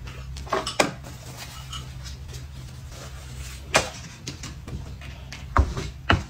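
Handling noises from paper food cups and a plastic seasoning sachet on a table: a few sharp taps and knocks, loudest about four seconds in and twice near the end, over a low steady hum.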